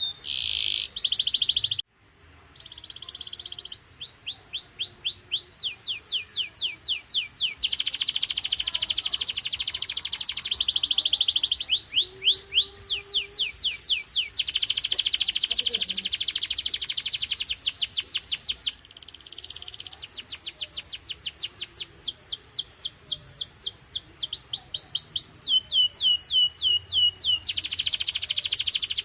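A domestic canary singing a long song of rapid repeated phrases: series of quick falling whistled notes alternate with very fast buzzing rolls, with a brief break about two seconds in.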